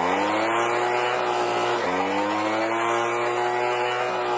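Leaf blower motor spinning up to a steady pitch, dropping off briefly about two seconds in and spinning straight back up.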